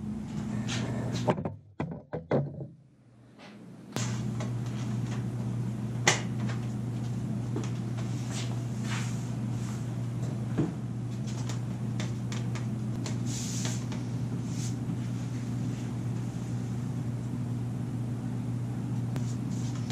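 Steady low hum of the garage's room tone, broken by a few light clicks and knocks. The hum drops out for a couple of seconds about a second and a half in.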